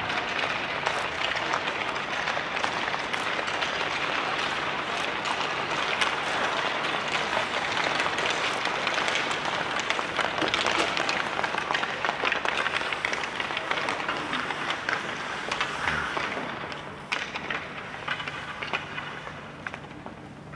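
Ice hockey practice on a rink: a steady hiss of skate blades scraping and carving the ice, with many sharp clacks of sticks and pucks. It grows quieter about three seconds before the end.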